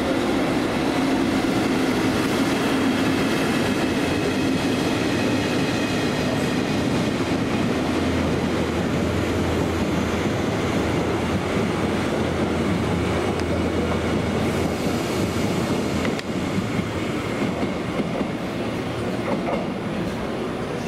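EF65 electric locomotive hauling a rake of passenger coaches past a station platform: the steady noise of the train running by, with the wheels rolling and clacking on the rails.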